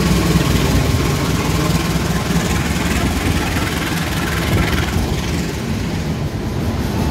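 A CC 201 diesel-electric locomotive's engine running with a heavy, steady rumble as it passes close by, followed by its passenger coaches rolling past.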